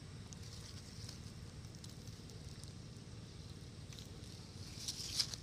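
Dry fallen leaves crackling and rustling, with faint scattered ticks and a brief louder rustle near the end, over a low steady rumble.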